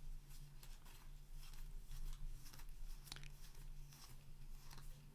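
Trading cards being flipped and slid through the hands, faint scattered clicks and crackles, over a steady low electrical hum.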